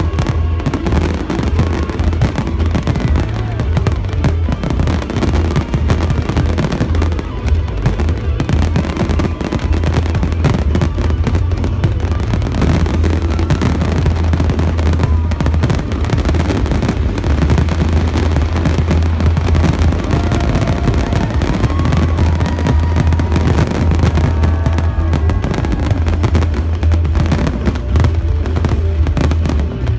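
Aerial fireworks going off in a dense, continuous barrage of bangs and crackle over a steady low rumble.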